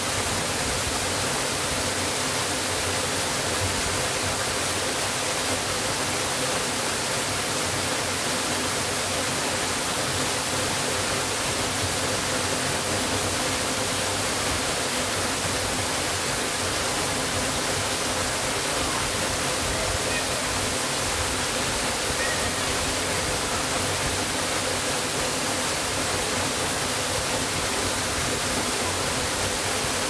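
Waterfall: water falling and splashing in a steady, unbroken rush that does not change.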